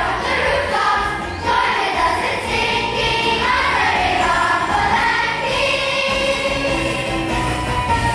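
Dance music with a choir singing a melody.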